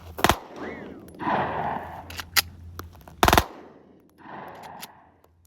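Airsoft Glock 26 pistol with a binary trigger firing a few sharp, spaced-out shots, the loudest just over three seconds in.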